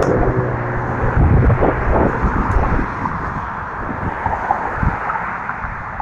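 Road traffic crossing the bridge: a passing vehicle's engine note fades away over the first second or two, leaving a steady traffic hiss. Wind buffets the microphone in irregular low gusts.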